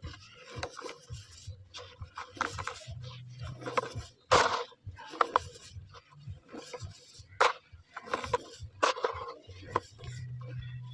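Dry cement balls being crushed and crumbled, an uneven run of crunching and scraping with a few sharper cracks, the loudest about four seconds in.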